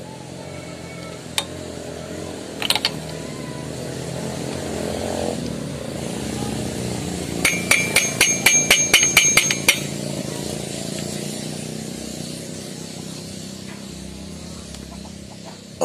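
About halfway through, a quick run of about eleven hammer blows on a steel socket bar, about five a second and ringing, tapping the clutch nut of a Yamaha Jupiter Z engine tight. A few single metal clicks come before it.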